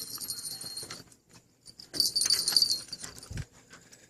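Zebco Slingshot spincast reel clicking in two high, rapid bursts of ticking as line goes out or is reeled in on a hooked fish. A dull low bump follows near the end.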